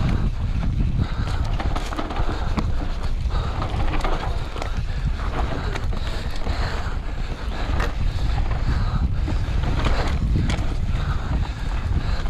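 Mountain bike descending a dirt singletrack fast: heavy wind buffeting on the GoPro microphone over tyre noise on dirt, with frequent clicks and knocks of the bike rattling over bumps.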